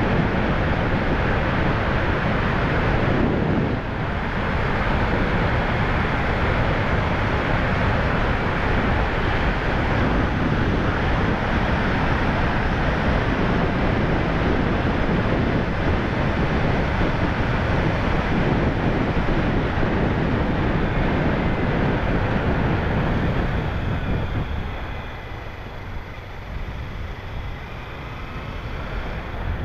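Kawasaki Ninja 300 motorcycle under way: a steady rush of wind over the rider's microphone mixed with engine and road noise, easing off for the last few seconds.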